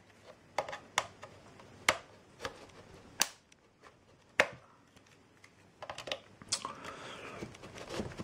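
Sharp irregular clicks and knocks of a hard plastic external hard-drive enclosure being handled and pried at, about seven over several seconds, followed by softer scraping near the end.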